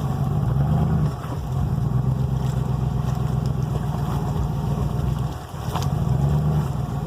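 1999 Ford F-150 pickup's engine running as the truck drives, its level easing off briefly about a second in and again past five seconds as the throttle changes.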